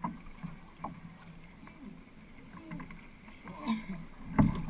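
Distant chatter of many voices from a crowd of paddlers in kayaks and canoes on the water, with small clicks and knocks. A loud thump close to the microphone comes near the end.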